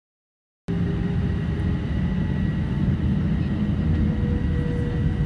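An airliner's jet engines at takeoff power, heard from inside the cabin during the takeoff roll: a heavy, steady rumble with a whine that edges slightly up in pitch. It begins suddenly under a second in.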